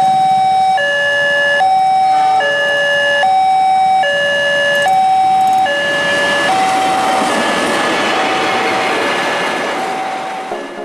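Railway level-crossing warning alarm sounding a loud, alternating high-low two-tone signal, each tone held just under a second. From about six seconds in, the rushing noise of a passing train builds up and partly covers the alarm, then eases off near the end.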